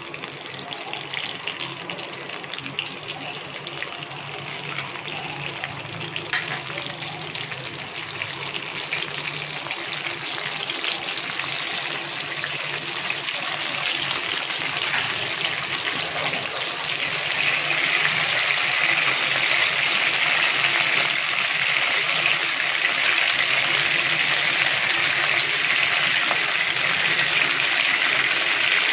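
Curry leaves sizzling in hot oil in a kadai: a continuous frying hiss that grows steadily louder over the first half, then holds steady.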